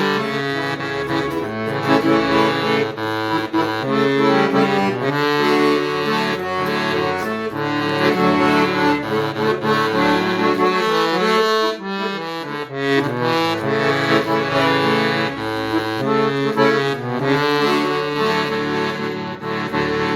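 Instrumental music with held chords over a moving bass line.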